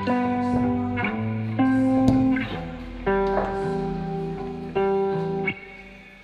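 Instrumental background music, with held notes and chords changing about once a second and fading near the end.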